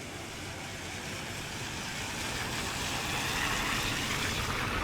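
A road vehicle passing on a wet street, its tyre hiss swelling to a peak near the end.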